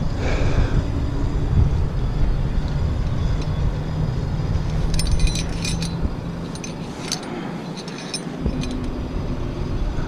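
A motor running with a steady low hum, broken by several quick bursts of light metallic clinking, like metal gear knocking together, a little past the middle.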